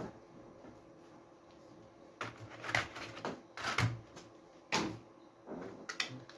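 Hands handling a new SSD and its packaging: a run of short, irregular clicks and rustles.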